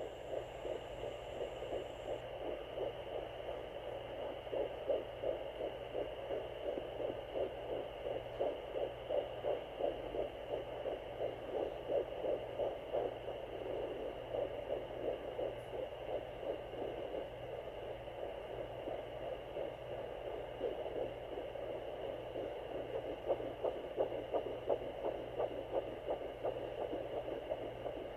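Sonoline B handheld fetal Doppler picking up a fetal heartbeat at 11 weeks: fast, evenly repeating whooshing pulses over a steady static hum from the Doppler's speaker.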